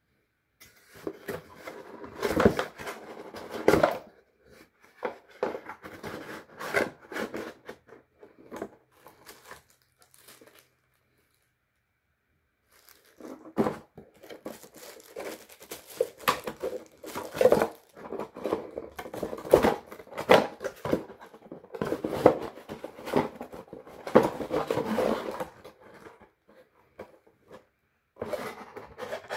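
Cardboard product box being handled and opened: its seal sticker picked and torn, with crinkling, tearing and scraping of card and paper in irregular bouts, and a pause of a couple of seconds in between.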